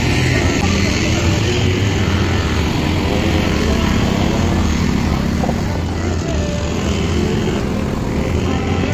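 Engine of a side-by-side dune buggy running with a steady low drone.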